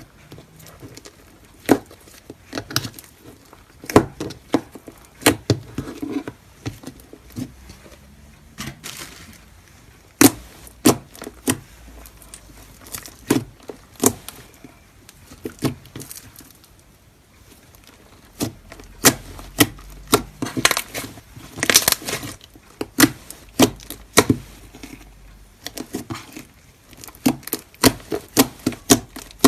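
Slime being squished and poked by hand, making irregular sharp clicks and pops, with a longer crackling stretch about two-thirds of the way through.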